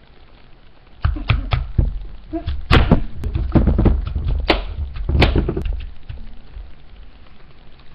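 A run of knocks and thuds on a wooden tabletop as an apple is split into halves and handled, starting about a second in and dying away around six seconds, with a few sharp taps among them.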